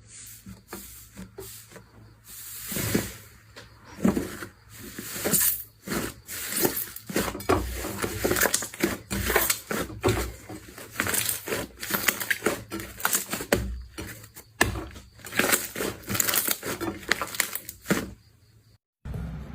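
Slime being squeezed, poked and stretched by hand, making irregular wet squelches, crackles and small pops, several a second.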